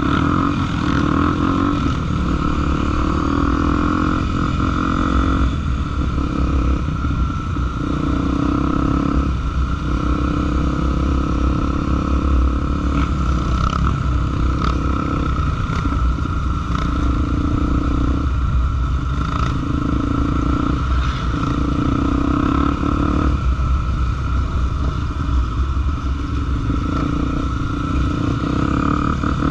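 Trail motorcycle engine running under way, its note shifting every couple of seconds as the throttle changes, with a constant low rumble and occasional clatter.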